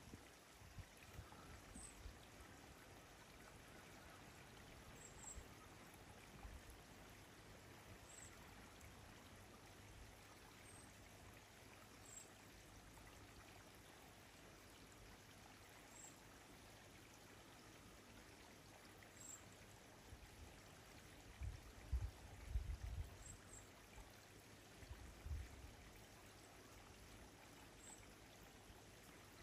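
Near silence: a faint steady outdoor hiss. Brief low rumbles come about two-thirds of the way through, and faint high pips recur every few seconds.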